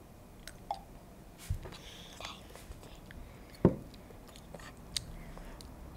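Quiet sipping and mouth sounds from a glass bottle being drunk from and handled, with scattered small clicks and a soft knock a little past three and a half seconds in.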